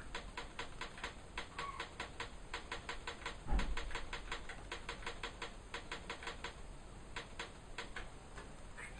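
Rapid clicking of the Sony ICF-CD831L clock radio's buttons as the time is stepped forward, about five or six clicks a second. There is a single low thump about three and a half seconds in.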